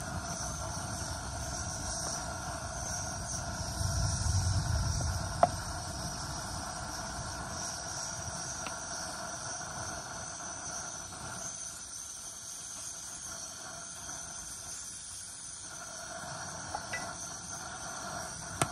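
Steady chorus of insects droning, with a brief low rumble about four seconds in and a single sharp click a second later.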